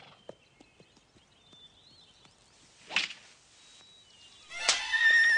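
A golf club swung through the ball with one sharp swish about three seconds in. Near the end a horse breaks into a loud, wavering whinny.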